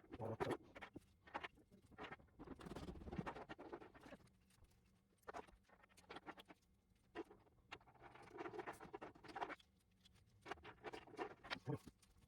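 Faint rustling and irregular small clicks from handling packaging and plastic light-kit parts.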